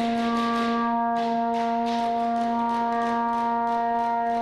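One long horn blast on a single steady note, its pitch unchanging throughout. Faint rapid ticks, about five a second, run behind it.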